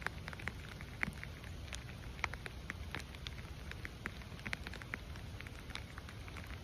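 Rain falling, with many separate drops ticking sharply and irregularly close by over a steady low rumble.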